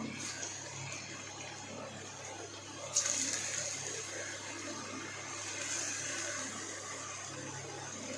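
Batter-dipped potato pieces deep-frying in hot oil, a steady sizzle that jumps suddenly louder and brighter about three seconds in.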